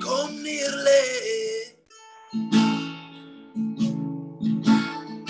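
Acoustic guitar strummed with a male voice singing. A long sung note bends down and fades out just under two seconds in, and the guitar carries on alone with strummed chords.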